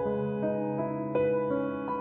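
Soft background keyboard music, piano-like, with new notes struck about every three-quarters of a second and held.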